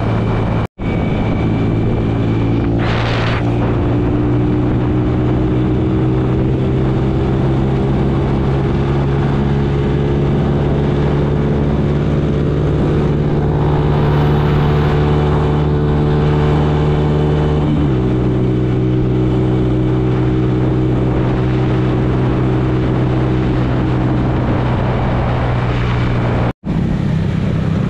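Small motorcycle engine running steadily under way. Its pitch climbs slowly as the bike gathers speed, then drops suddenly about eighteen seconds in, as at an upshift. The sound cuts out completely for an instant twice, once near the start and once near the end.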